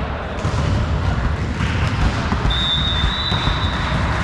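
Volleyball referee's whistle blowing one steady, high note for about a second and a half, starting about two and a half seconds in, as the signal to serve. It sounds over the dull knocks of balls on the floor and the steady noise of the sports hall.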